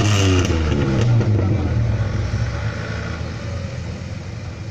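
Nissan Patrol GR engine working on an off-road climb. Its pitch eases down in the first second, then it runs on steadily and slowly fades.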